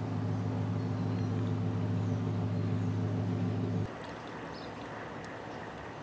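Small 5-watt DC water pump humming steadily, cutting off abruptly about four seconds in.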